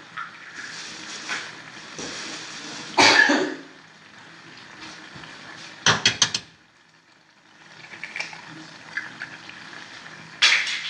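A person coughs once about three seconds in. Near six seconds comes a quick run of four sharp knocks, like kitchen utensils being handled, over a steady low background hum.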